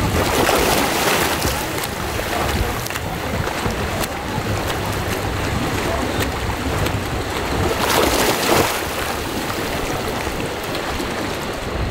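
Swimming-pool water splashing and lapping, with wind noise on the microphone. There are two louder splashing swells, one about half a second in and one about eight seconds in.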